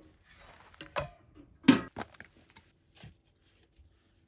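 A few scattered knocks and clicks of gear being handled at a small sheet-steel tent wood stove, the loudest a single sharp knock about a second and a half in.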